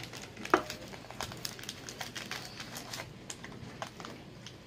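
A Jell-O box being prodded and torn open with a fork: crinkling and crackling with scattered sharp clicks, the loudest about half a second in.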